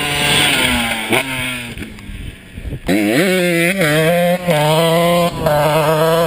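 Suzuki RM125 two-stroke single-cylinder dirt bike engine. It winds down off the throttle and goes quieter, then about three seconds in revs up sharply and holds at high revs, with a few short dips.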